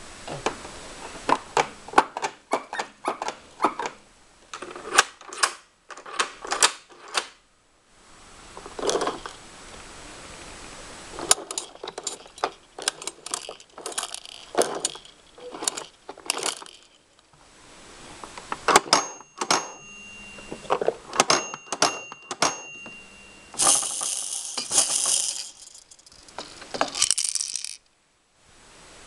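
Playgo plastic baby activity table worked by hand: bursts of plastic clicking and clattering as gears, wheel and buttons are turned and pressed, and beads rattling in the clear roller, with a few short ringing tones about two-thirds of the way through.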